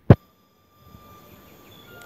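A single sharp click just after the start, then faint outdoor ambience with a few steady high-pitched tones.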